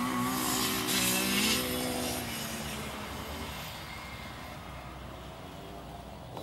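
Child's mini motocross bike engine running as the bike rides along the track. It fades about two seconds in, leaving a low steady noise.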